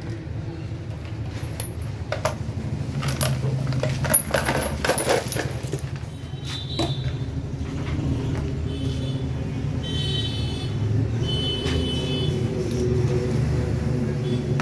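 Loose steel tube pieces clattering and clinking together on a concrete floor, a quick run of sharp metallic clinks about two to six seconds in, loudest about four seconds in, over a steady low rumble.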